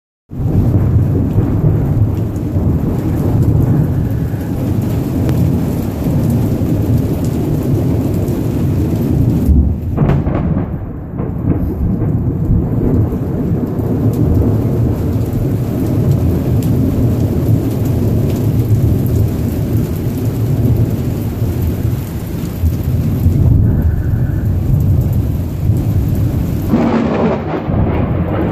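Thunder rumbling continuously over steady rain.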